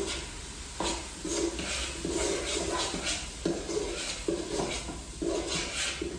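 Metal spoon stirring onions and curry powder in a multi-cooker's inner pot, scraping and rubbing on the pot in a run of uneven strokes, about one or two a second.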